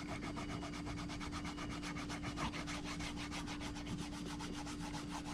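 Quick, even rubbing strokes on a leather knife sheath as paint is worked into its stitching, over a faint steady hum.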